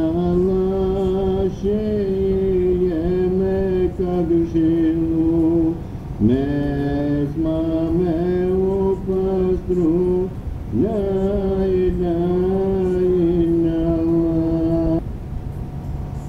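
An ilahi, a Sufi devotional hymn, sung as a slow chant in three long held phrases with gliding ornaments and a short breath between each, over a steady lower tone. Near the end the melody stops and only the low tone goes on.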